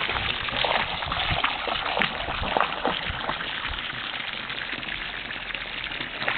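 Stream of water from a garden hose pouring and splashing into canal water: a steady rush with scattered louder splashes.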